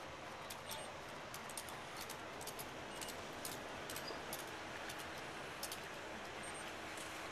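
Steady background hiss with scattered light clicks at irregular intervals.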